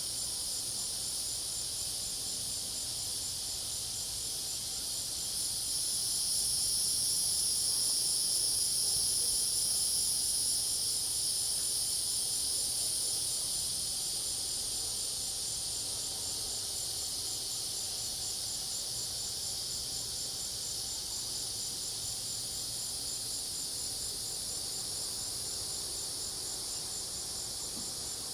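Dense, steady chorus of crickets and cicadas trilling, with one insect pulsing rapidly throughout. The chorus swells louder for several seconds from about five seconds in, then eases back.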